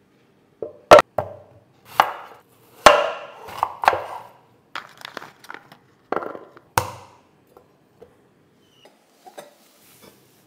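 A series of irregular, sharp knocks and clatters with short ringing after some of them; the loudest come about a second in and near three seconds, and they thin to a few faint ticks in the last few seconds.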